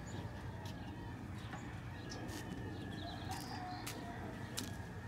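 Chickens clucking in the background, with a few sharp knocks from work on the wooden stud frame, over a steady low hum.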